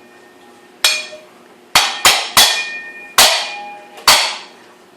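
A hard metal object struck again and again: six sharp clangs at uneven intervals, two of them close together, each ringing briefly and fading.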